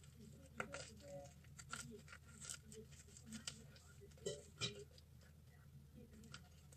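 Faint rustling and crinkling of fabric handled close by, with scattered small clicks, the loudest a little over four seconds in.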